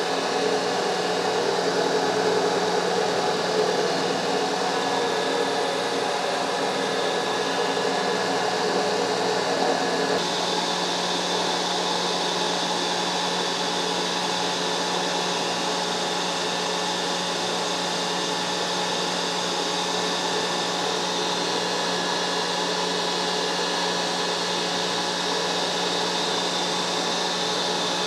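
Vintage drill press spindle turning a 5/8-inch carbide stubby end mill that is milling a slot in the cast-iron table, cutting dry, a steady machine running sound. The sound shifts in character abruptly about ten seconds in and then carries on steadily.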